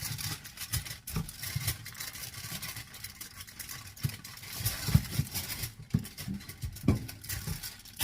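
Hands rolling up and pressing a log of seitan dough on a work surface: irregular soft thumps and a few sharper knocks over a steady hiss.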